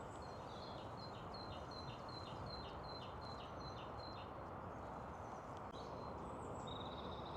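A small songbird singing a quick repeated two-note phrase, high then dropping, about three times a second for roughly four seconds. A few scattered chirps and a short trill follow near the end, over a steady low background noise.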